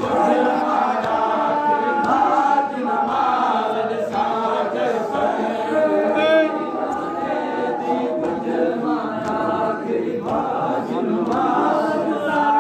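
Many men's voices chanting a Sindhi noha, a Shia mourning lament, together in a crowd.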